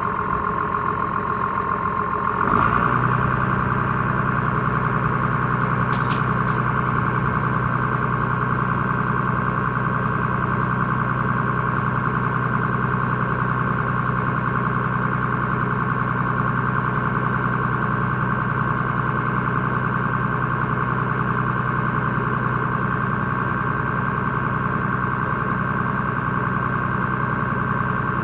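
Tractor engine running steadily with a high, even whine over it; about two and a half seconds in it picks up and a steady low hum joins. A brief click about six seconds in.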